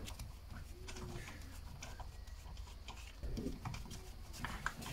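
Faint, scattered light clicks and knocks of hand work at a car wheel as it is taken off the hub.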